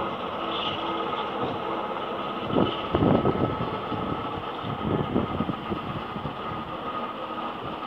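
Small four-wheel diesel shunting locomotive running as it moves off along the track. Clusters of louder clattering knocks come about two and a half to three and a half seconds in and again around five seconds.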